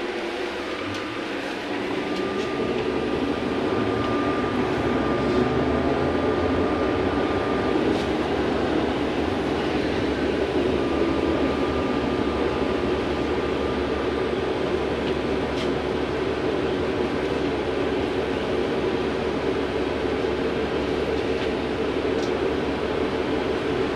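Cabin noise of a VMZ-5298-20 trolleybus pulling away from a stop and driving on: a steady low rumble of the electric drive and tyres that grows louder about two seconds in, with a thin high whine for several seconds after the start and again briefly midway.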